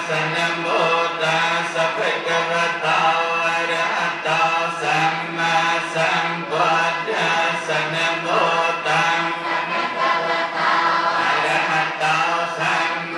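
Theravada Buddhist monk chanting into a handheld microphone: a steady, unbroken recitation on a held reciting tone, amplified through the microphone.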